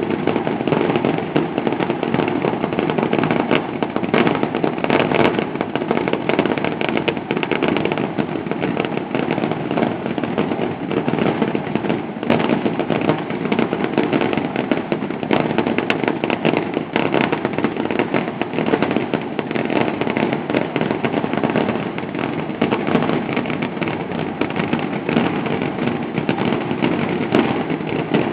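Fireworks display going off in a dense, unbroken barrage: many overlapping bursts and crackles with no pauses.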